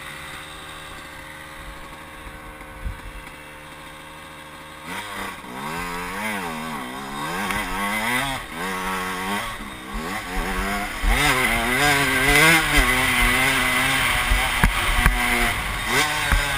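Motocross dirt bike engine idling steadily, then revving up and down repeatedly from about five seconds in. It grows louder, with more rushing noise, as the bike picks up speed.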